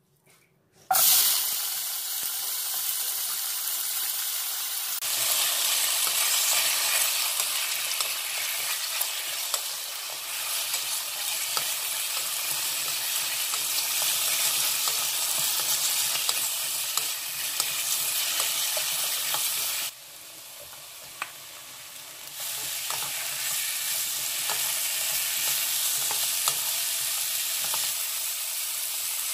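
Sliced Korean zucchini sizzling in hot oil in a nonstick wok, stirred with a wooden spatula that scrapes and taps the pan. The sizzling starts suddenly about a second in as the zucchini goes into the oil, drops quieter for a couple of seconds about two-thirds of the way through, then picks up again.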